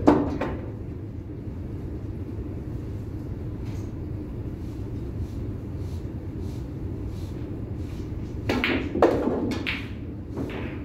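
A pool shot near the end: the cue tip strikes the cue ball, the cue ball clacks into the 8 ball, and the 8 ball drops into the corner pocket, heard as a quick cluster of knocks. One sharp ball-like clack comes right at the start, over a steady low hum of the room.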